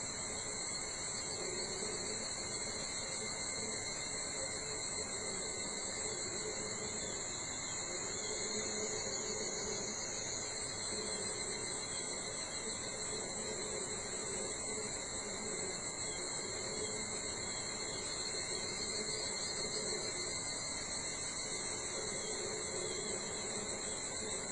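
Chorus of summer insects calling steadily at dawn, several high-pitched trills overlapping without a break.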